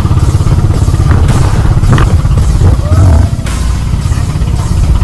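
Outrigger boat's engine running at speed, loud and steady, with water splashing along the hull and wind buffeting the microphone.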